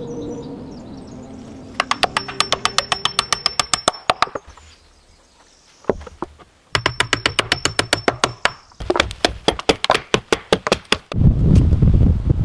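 Rapid, evenly spaced knocking, about eight to ten knocks a second, in runs with a pause after the first. About eleven seconds in, a louder rough noise takes over.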